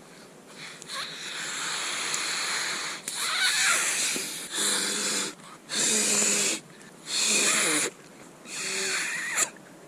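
A person blowing hard by mouth into an inflatable pillow's valve to blow it up: one long breath, then five shorter breaths about a second apart, with short pauses to draw breath between them.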